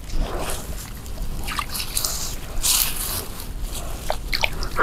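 Hands groping for snails in shallow muddy water, sloshing and dripping, with a few short clicks near the end.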